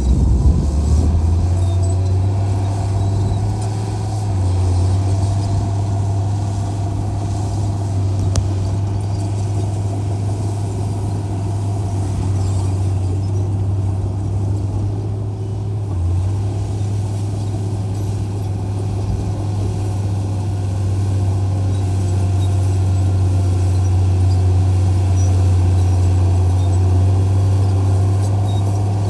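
Heavy diesel engine of an earthmoving machine running steadily, a deep hum with little change in speed.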